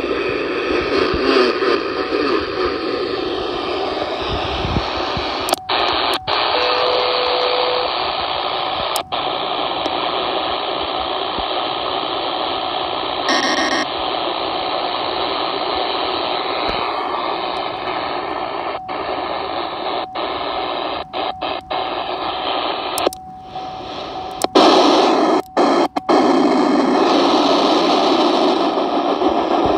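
CB radio receiver on 27.255 MHz upper sideband giving out steady band-noise hiss through its speaker, broken by several brief dropouts. A faint steady tone comes and goes, and a brief burst of tones sounds about 13 seconds in.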